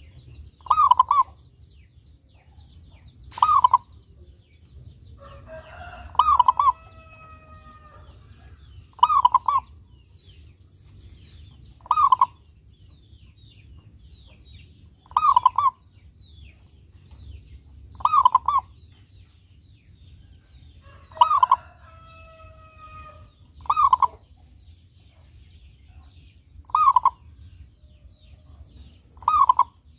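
Zebra dove (perkutut) cooing: a short, clear call repeated about every three seconds, eleven times. Twice a longer drawn-out call from another bird, lasting about two seconds, overlaps the coos, over faint chirping of small birds.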